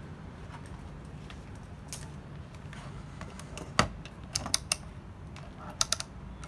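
Handling clicks of a Sanwa YX-361TR analog multimeter: one sharp knock a little under four seconds in as it is set on the bench, then quick clicks of its rotary range switch being turned through its detents, and two more clicks near the end.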